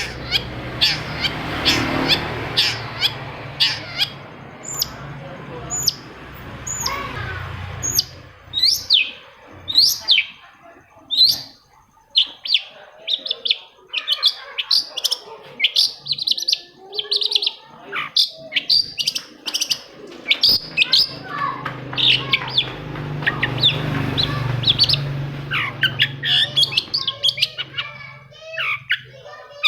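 Long-tailed shrike (cendet) singing a rapid, varied run of sharp chirps and short falling whistled notes. A low background rumble runs under the song at the start and again in the second half.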